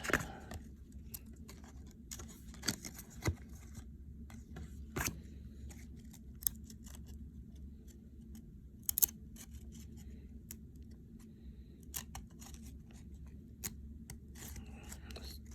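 Handling a pack of baseball cards: scattered light clicks, crinkles and scrapes of card stock and wrapper, at a low level over a faint steady hum.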